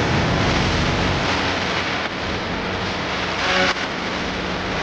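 Wind noise on an action camera's microphone mixed with mountain-bike tyres rolling and rattling over a loose rocky dirt track. There is a brief louder bump about three and a half seconds in.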